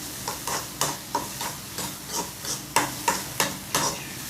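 Chopped onions, green chillies and spice powders frying in oil in a pan, stirred briskly: a quick run of scraping strokes against the pan, about three a second, over a faint sizzle while the onions soften toward translucent.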